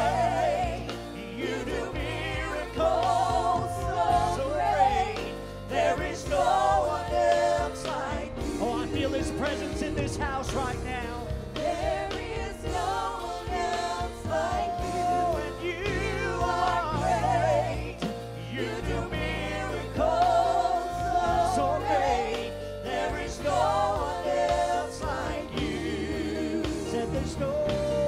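Gospel-style worship song from a live church band: sung voices with a wide, wavering vibrato over steady low bass notes.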